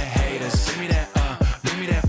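Hip hop backing track between rapped lines, driven by deep bass notes that drop steeply in pitch about three or four times a second.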